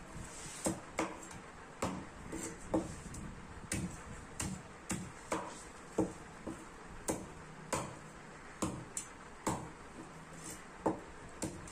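Long knife chopping a seer fish head into pieces on a thick wooden block: sharp knocks of the blade striking through into the wood, about one to two a second at an uneven pace.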